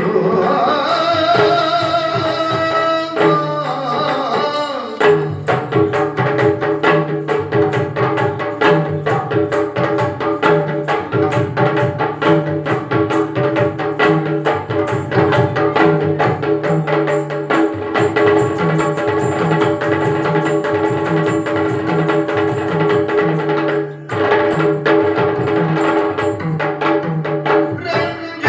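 Yakshagana music: a sung line in the first few seconds, then fast, dense hand-drumming over a steady held drone, with a brief break about 24 seconds in.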